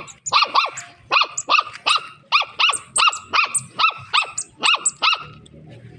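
Dog barking repeatedly in quick, high-pitched yaps, about three a second, stopping about five seconds in.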